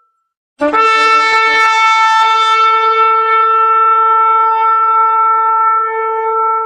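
Shofar blown in one long, steady blast that starts sharply after a brief silence, with a few rough cracks in the first second or so before the tone settles.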